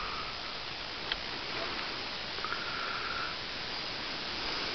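Steady hiss of wind across the microphone. About two and a half seconds in, a short, thin high tone sounds for just under a second.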